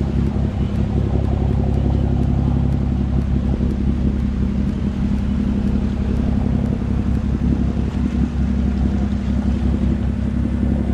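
Inboard engine of a passing work boat running steadily, a loud, low, even drone with its wake washing alongside.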